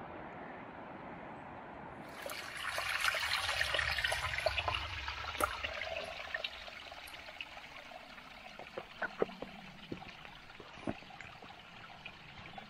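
Small spring water trickling out from under tree roots and dribbling over rocks. It comes in about two seconds in, is loudest for the next few seconds, then fades to a faint trickle with scattered small drips.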